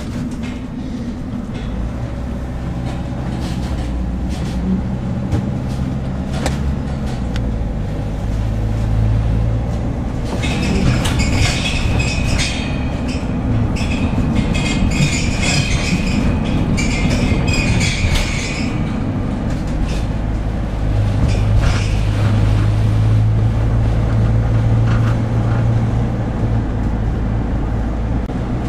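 Van engine and tyre noise heard from inside the cab while driving, with the engine note shifting as the van slows and speeds up. From about ten seconds in, a higher hissing noise joins for some eight seconds.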